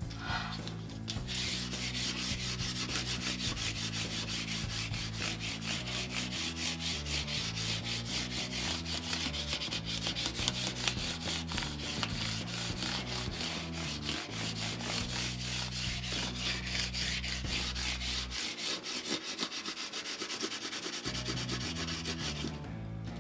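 320-grit sandpaper scrubbed by hand in fast back-and-forth strokes over the levelled frets and fingerboard of a 1965 Hofner 500/1 bass, scuffing out the file marks left by fret levelling and crowning. The scrubbing starts about a second in and stops just before the end.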